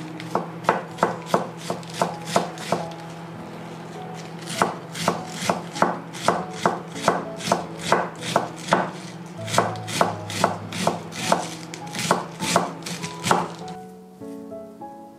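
Kitchen knife shredding cabbage on a wooden cutting board: quick, even chops about three a second, pausing for a couple of seconds about three seconds in, then running on and stopping about a second and a half before the end.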